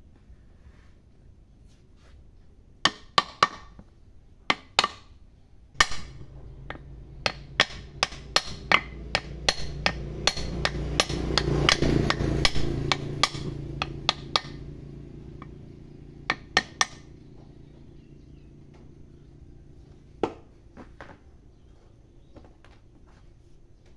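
Hammer blows on a metal drift against the cast housing of a Kubota DC70 hydrostatic transmission pump, driving a part home. The blows come in short pairs at first, then as a quick run of taps for several seconds, then a few more spaced strikes.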